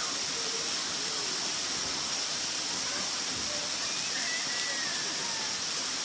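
Steady hissing outdoor ambience with a constant high-pitched whine, and faint distant voices of people swimming and playing in the water, a little clearer about four seconds in.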